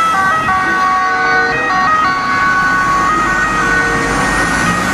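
Italian ambulance's two-tone siren, switching back and forth between two pitches as the ambulance drives past and away, with road traffic noise underneath.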